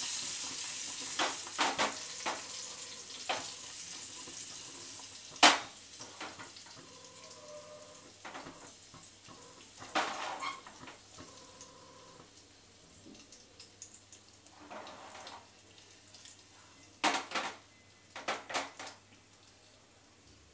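Curry leaves and red chilli pieces sizzling in hot oil in a small steel pan, the sizzle fading over the first several seconds. Sharp metal clinks and knocks of the pan and spoon come now and then, the loudest about five seconds in, with a cluster of clicks near the end.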